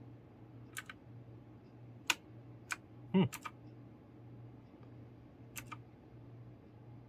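Single key presses on a Magegee mechanical keyboard with clicky blue switches, each a sharp separate click, about six of them spaced irregularly. Two of the clicks come close together a little after halfway.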